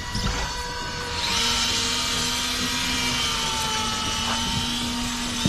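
A small electric motor starts up about a second in and runs with a steady whine, over a constant background hum.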